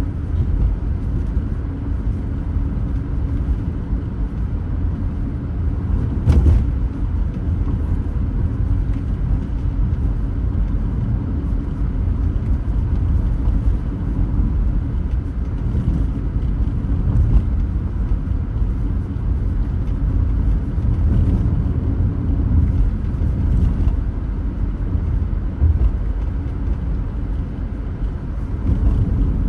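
Car driving, heard through a windscreen dashcam: a steady low rumble of road and engine noise, with a single sharp click about six seconds in.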